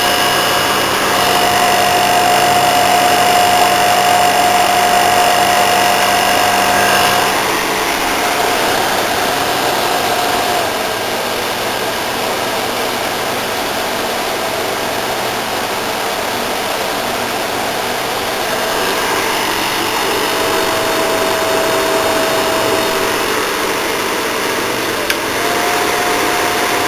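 Small 5000 BTU Speedie window air conditioner running on cooling: fan blowing with a steady whine and hum from the compressor and fan motor. About seven seconds in the low hum and part of the whine drop away and it runs a little quieter.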